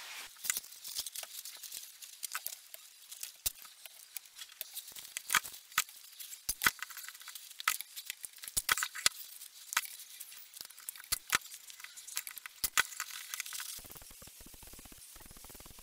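Irregular light clicks, taps and clinks, a few every second, over a faint hiss.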